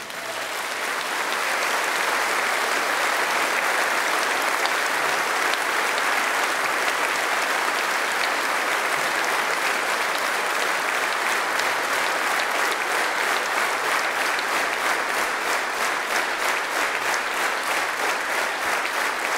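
A large audience applauding, the clapping swelling over the first couple of seconds as the music ends, then falling into a steady rhythmic beat in unison about halfway through.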